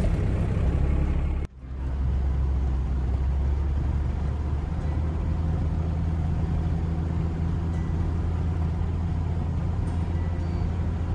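Steady engine drone and road noise heard inside the cab of a second-generation Dodge pickup driving down a road. A louder stretch in the first second and a half cuts off sharply before the steady drive noise takes over.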